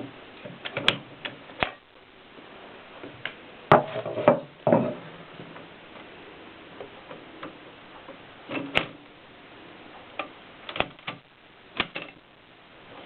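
AEG Mignon 4 index typewriter being typed on: sharp mechanical clacks at an uneven, slow pace, some single and some in quick clusters, with a few louder knocks in a cluster about four seconds in.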